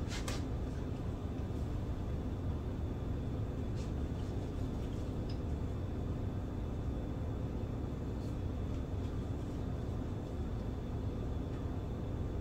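Steady low room hum, with a few faint soft taps as a metal grill scraper presses down through bread dough onto a pastry mat.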